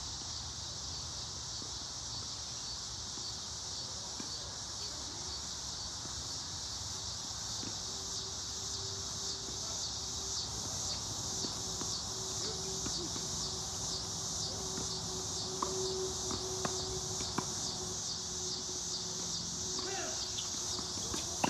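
A chorus of insects in the trees making a steady high-pitched buzz. In the second half it is broken by a few sharp knocks of tennis balls struck by rackets.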